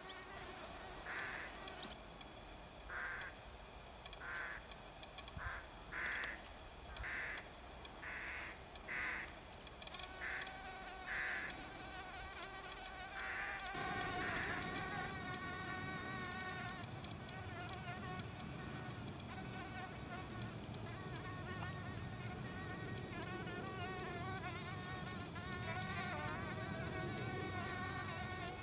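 Insect buzzing: a steady, slightly wavering hum of bees in flight, with several pitches sounding together. In the first ten seconds about ten short, higher notes come roughly once a second. From about halfway a low rushing noise joins in.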